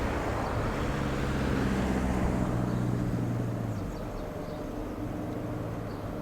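A train that has just passed fades into the distance, its rumble dying down, with a steady low hum that weakens almost four seconds in.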